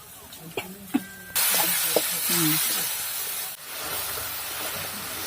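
A few clicks of a spoon against the pan, then a loud, steady sizzle that starts suddenly about a second and a half in: the spiced tomato gravy frying in the hot pan.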